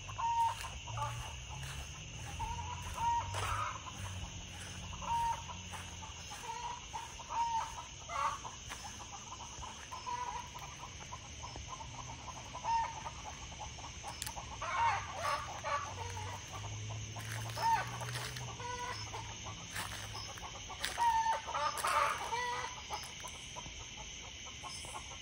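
Backyard chickens clucking, a short call repeated over and over about once a second, sounding like "fuck" said again and again. Several times a louder, busier flurry of clucks breaks in.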